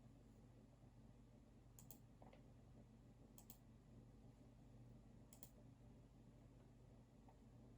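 Three faint, sharp computer mouse clicks, each a quick press-and-release pair, spaced about a second and a half to two seconds apart, over a low steady room hum.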